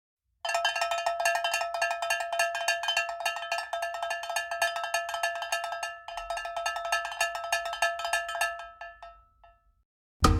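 A cartoon-style sound effect: a fast, even run of struck metallic percussion hits on a few fixed pitches, like a rapidly beaten cowbell. It breaks briefly about six seconds in, then slows and dies away near the end.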